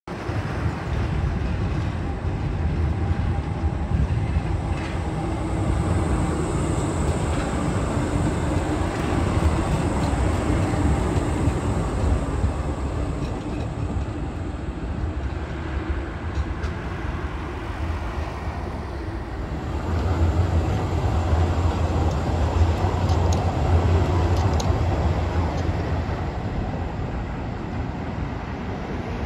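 Škoda 15T low-floor trams running past on curving street track: steady rolling rumble and motor hum, with a faint high whine as the first tram goes by. Road traffic is mixed in, and a louder low rumble builds about two-thirds of the way through as the next tram comes in.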